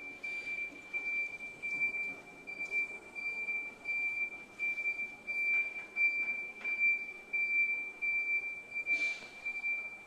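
Travel warning alarm of a Toyota stand-up electric reach truck sounding as the truck drives: a high-pitched electronic tone that pulses in loudness about twice a second.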